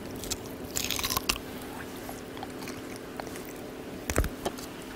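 Young Jindo dogs biting and chewing pieces of boiled pork, which they gulp down after only a bite or two. A few short scattered bites, with a cluster about a second in and again near the end.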